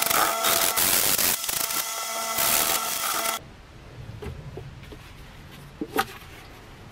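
Sandpaper rubbed by hand in quick strokes along a new wooden hammer handle, a harsh rasping that cuts off abruptly about three and a half seconds in. After that it is quieter, with one sharp click near the end as the metal tin of wood dye is handled.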